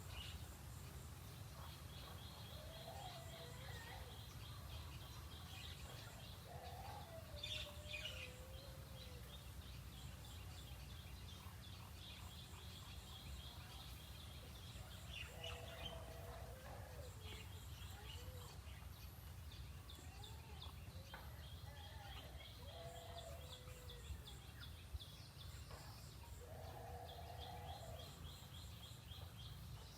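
Faint outdoor ambience of birds calling: rapid high chirping trills repeat for several seconds at a time, with short lower calls every few seconds, over a steady low hum.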